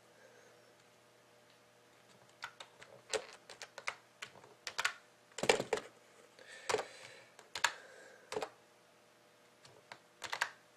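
Typing on a computer keyboard: irregular runs of key clicks with pauses between them, starting about two seconds in.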